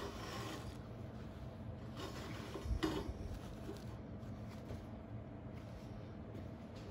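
Faint handling noise as the welded steel plate is moved on a metal workbench, with one knock about three seconds in, over a low steady hum.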